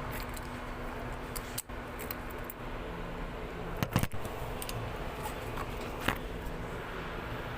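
Light metallic clicks of keys and lock parts being handled during a car lock repair: a quick cluster of clicks about four seconds in and a single click about six seconds in, over a steady low hum.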